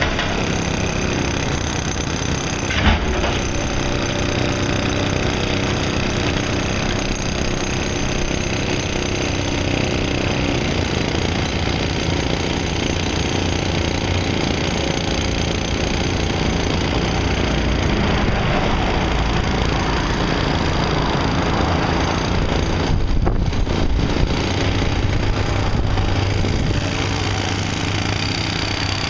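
Heavy construction machinery running steadily, with a single sharp knock about three seconds in.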